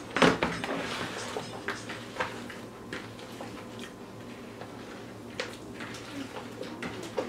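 Mackerel being mixed with lemon in a plastic mixing bowl: rubbing and sloshing with a scatter of knocks of the bowl and utensil, the loudest knock just after the start.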